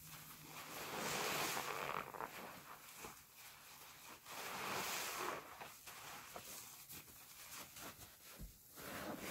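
Gloved hands squeezing sponges loaded with suds: wet squelching and crackling foam, with two longer, louder squeezes about a second in and about five seconds in, and smaller squishes between.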